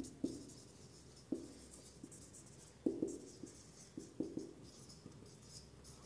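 Marker pen writing on a whiteboard: faint squeaks and scratches with a series of short, irregular taps as the letters and numbers are drawn.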